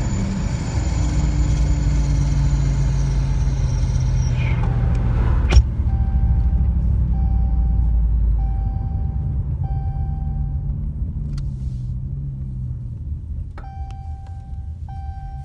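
Dodge Challenger with its mid muffler and rear resonator deleted, its exhaust rumbling deep and loud and easing off about nine seconds in. A steady chime beeps at an even pace from about four seconds in, pauses, and starts again near the end, with a single click in between.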